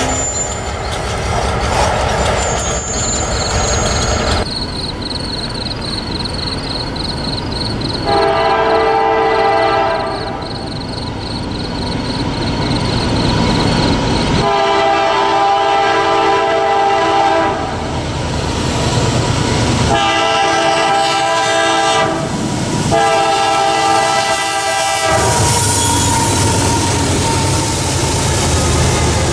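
A grade-crossing bell rings while a CSX AC4400CW freight locomotive sounds its multi-chime air horn in four blasts, the standard warning for a grade crossing. Near the end, the diesel engines rumble in as the locomotive reaches the crossing.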